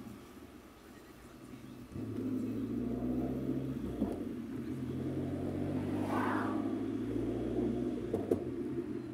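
Car driving, heard from inside the cabin: a steady low rumble of engine and tyres on the road. It is quieter for the first two seconds and grows louder about two seconds in, with a brief whoosh about six seconds in.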